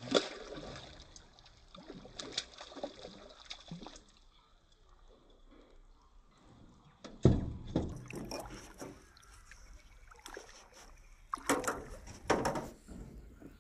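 A hooked fish splashing and thrashing at the water surface. Later come a heavy thump and sharp slaps, which fit the fish hitting and flopping about on the floor of a small metal boat.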